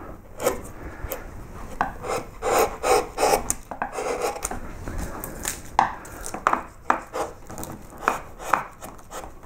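A sharp, shallow woodcarving gouge taking a run of short slicing cuts across the grain, each stroke a brief scraping shave as a thin curl of wood is pared off to level the background.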